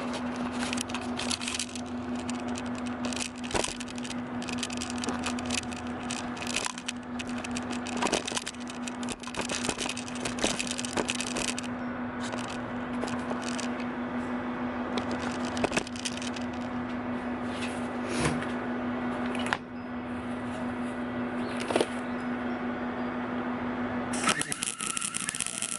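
Gas-shielded MIG welder laying a bead, with a steady crackling arc and a steady hum while the trigger is held. Both stop near the end.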